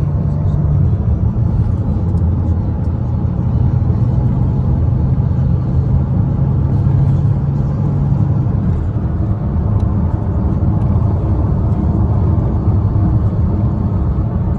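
Steady engine and road noise inside the cabin of a 2015 Chevrolet Cruze on a test drive, a low drone that shifts slightly in pitch about eight seconds in. The car is running normally after a purge solenoid replacement.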